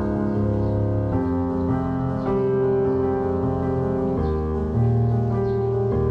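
Background music: a slow piano piece of held chords, changing every second or two.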